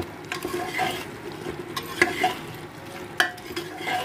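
Steel ladle stirring mutton and masala in a pressure cooker, scraping and giving a few sharp knocks against the pot, over the steady sizzle of the masala frying (the bhuna stage).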